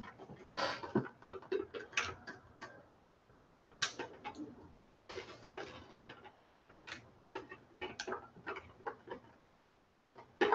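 Irregular clicks, taps and short scrapes of hard plastic as a football helmet and its visor are handled while the visor's mounting screw is worked into place.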